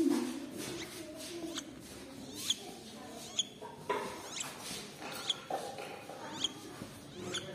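Downy owlets peeping: short, sharp, high-pitched squeaks repeated about once a second.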